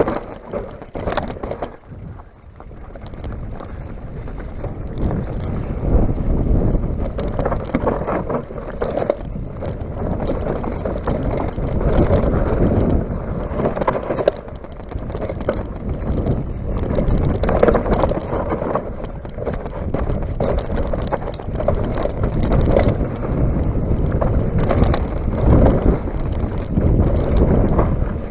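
Mountain bike descending a dirt trail at speed: wind rushing over the microphone, tyres running over dirt and the bike rattling, with frequent knocks over bumps. It drops briefly about two seconds in, then grows louder again.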